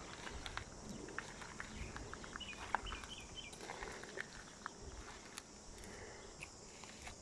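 Footsteps crunching slowly over a beach of pebbles and broken shells, with scattered small clicks as shells and stones shift underfoot. A few faint high chirps come about three seconds in.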